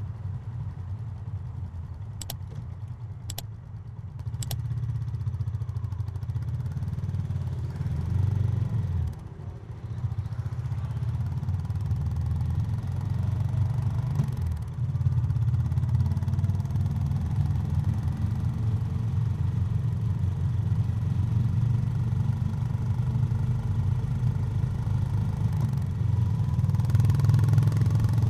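Honda GB350's air-cooled single-cylinder engine running as the motorcycle is ridden, its note dropping briefly a few times. Three sharp clicks about a second apart come in the first five seconds.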